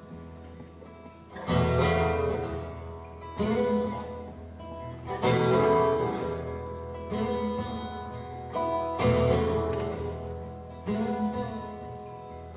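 Guitar chords strummed slowly, about one every two seconds, each left to ring and fade before the next.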